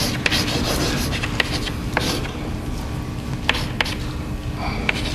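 Chalk writing on a blackboard: short taps and scratches of the chalk stick, over a steady room hum.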